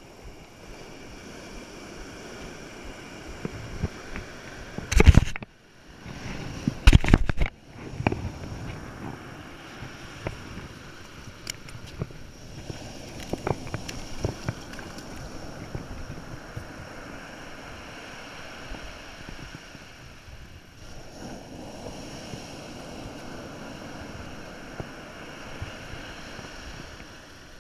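Steady noise of surf and wind on the microphone, with two loud rumbling bursts about five and seven seconds in and scattered small clicks and knocks.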